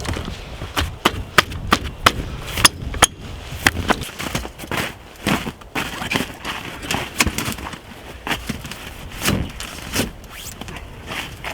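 Wood being split or broken: irregular sharp cracks and knocks, several a second at their densest, loudest in the first few seconds and thinning out after.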